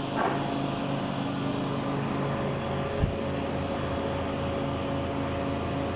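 Vacuum pump of a CNC router's vacuum hold-down table running with a steady hum and hiss. A short knock comes about halfway through.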